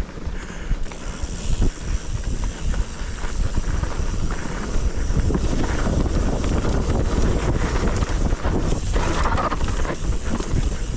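Wind buffeting the microphone of a camera moving fast downhill, over an uneven low rumble and rattle from travel across rough ground, with a brief brighter scraping rise about nine seconds in.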